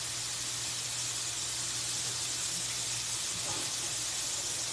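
Chicken strips sizzling steadily in a nonstick skillet, an even hiss.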